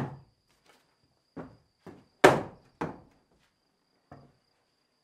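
Irregular knocks and thuds on loose wooden floorboards from footsteps and handling work, one strong thud at the start and the loudest about two seconds in, with smaller knocks between.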